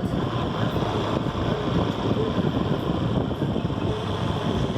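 Motorcycle running while riding, its engine noise mixed with wind rushing and buffeting on the microphone.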